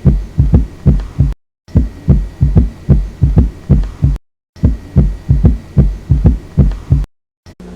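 Heart sounds heard through a stethoscope: rapid low thumps of repeated beats, about four a second. The same short recording is looped, breaking off into silence twice between repeats.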